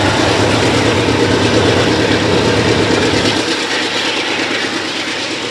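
Double-stack intermodal well cars rolling past: a steady, loud rumble and rattle of steel wheels on rail. The deep low rumble underneath drops away about three seconds in.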